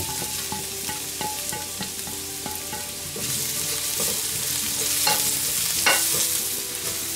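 Chopped onion and garlic sizzling in hot oil in a stainless steel wok while a silicone spatula stirs them, scraping and tapping against the metal. The sizzle grows louder about three seconds in, and two sharper scrapes come near the end.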